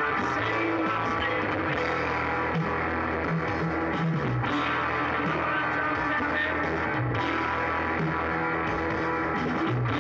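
Background rock music led by guitar, playing steadily at an even level.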